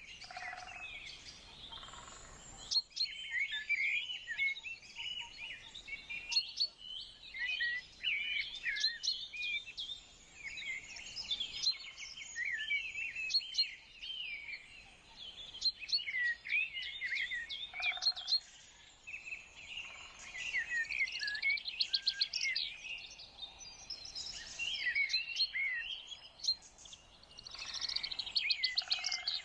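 Several songbirds singing and calling at once: a dense chorus of chirps, whistled notes and fast trills. Now and then a short lower note sounds, about three times.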